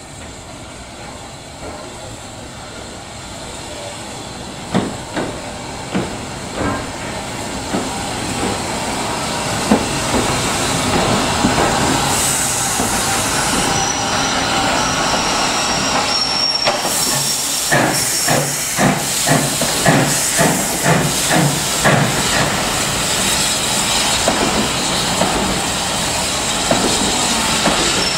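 SECR Wainwright H class 0-4-4T steam tank engine with its coaches moving through the station close by. A steady steam hiss grows louder, then the wheels click over the rail joints about two times a second as the train passes, with a thin high wheel squeal in the second half.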